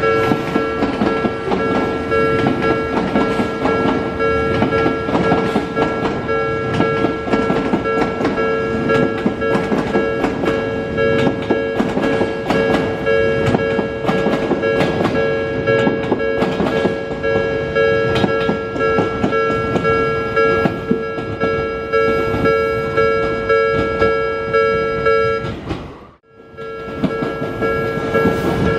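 Level crossing warning alarm sounding continuously over the rumble and rapid clicking of an Odakyu 3000 series train coupled with an 8000 series set, its wheels running over rail joints. The sound cuts out abruptly near the end and comes straight back.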